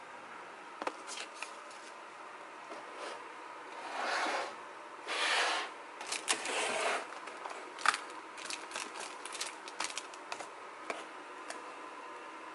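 Clear plastic takeaway food containers being handled: two brief rustling scrapes about four and five seconds in, then a run of light clicks and taps of plastic.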